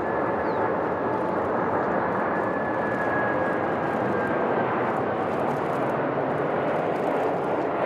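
Boeing 747 freighter's jet engines on final approach: a loud, steady roar, with a thin high whine that drifts slowly lower and fades out about halfway through.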